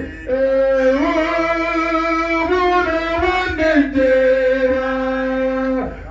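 A man singing into a handheld microphone, long held notes that step up and down and glide between pitches, with a short break for breath just after the start and again near the end.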